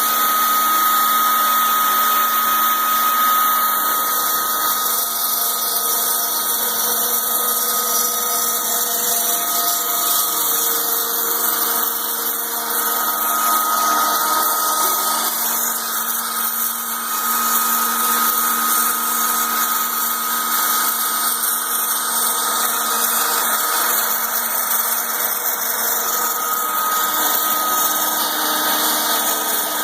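A DIY CNC router's spindle running with a steady high-pitched whine as it mills flat the machine's own bed. A strong tone in the whine fades and returns several times as the cut goes on.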